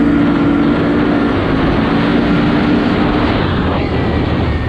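Can-Am Outlander ATV engine running as the quad rides along a paved lane, with a steady engine note over rushing wind and tyre noise.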